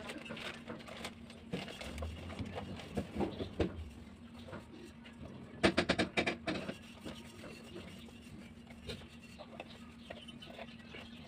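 Plastic bags of small air dryer repair-kit parts rustling and crinkling as they are handled, with small parts clicking and rattling; a quick run of sharp clicks about six seconds in is the loudest moment. A steady low hum runs underneath.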